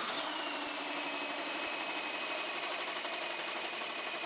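Milwaukee Ice Hardened and DeWalt hole saws turning in machine spindles and cutting into metal plate: a steady machine noise with a high whine that drops in pitch just as the cut starts, then holds steady.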